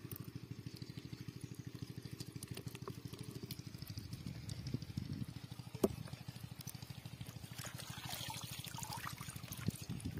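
Water trickling and splashing from a wet cast net as fish are picked out of it, busiest near the end, over a steady, rapid low throb.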